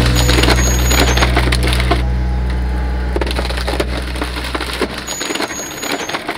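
A log cracking and splintering under a hydraulic wood-processing machine: a rapid run of sharp cracks over a steady low hum that dies away about five seconds in. A brief high squeak comes near the start and again near the end.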